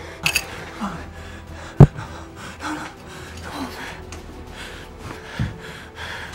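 A man gasping and breathing hard in fear. A sharp thump comes about two seconds in, and a softer one about five and a half seconds in.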